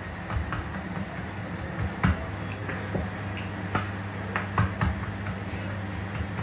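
Hands working dough on a stone countertop: irregular knocks and taps as the dough is pressed and turned, over a steady low hum.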